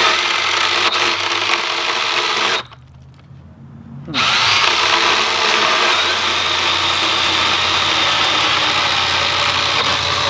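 Milwaukee M12 Fuel Hatchet 6-inch cordless pruning saw running with its chain in a 3 to 4 inch branch, a steady high-pitched motor and chain whine. A few seconds in it stops for about a second and a half, then starts again and cuts on.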